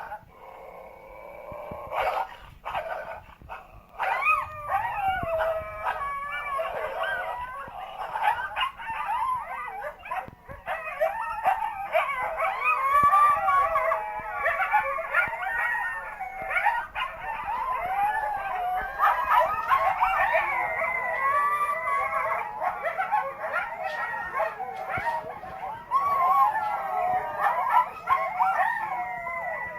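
A coyote pack's chorus: many overlapping wavering howls and yips sounding together, growing dense about four seconds in.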